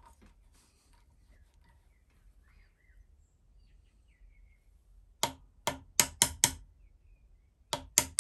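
Ball-peen hammer tapping a pin punch to drive a rifle's tenon pin flush into the wooden stock: a quick run of five sharp, ringing metallic taps about five seconds in, then a second run starting near the end.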